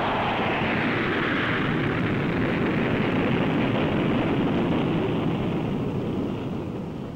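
Jet engines of a Boeing B-52 bomber climbing away: a steady, dense jet noise that fades somewhat near the end.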